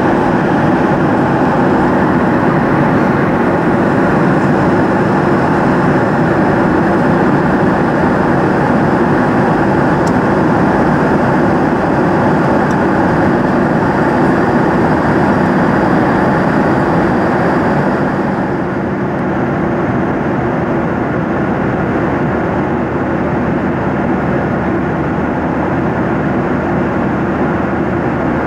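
Jet airliner cabin noise in flight: a loud, steady rush of air and engine noise with a low hum. About two-thirds of the way through it turns slightly duller and quieter.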